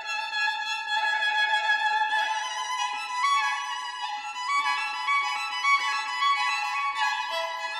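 Background music: a melody of held, slightly wavering notes that change pitch every second or so, with no bass.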